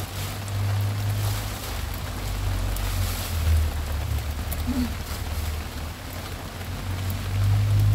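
Wind buffeting the microphone with a low, gusting rumble, over a steady hiss of rain.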